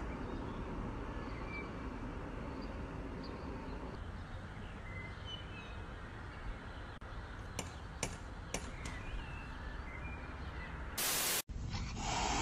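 Cat rapping a metal door knocker: four sharp knocks about half a second apart, a little past halfway, over steady outdoor hiss with faint bird chirps. Near the end a brief burst of noise, then a cat hissing.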